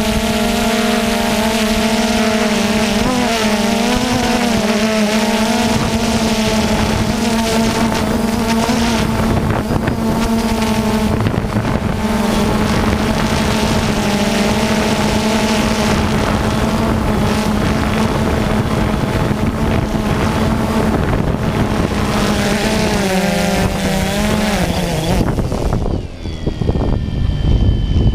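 A small engine running at a steady speed with a constant hum, its pitch wavering briefly twice, then stopping about 25 seconds in.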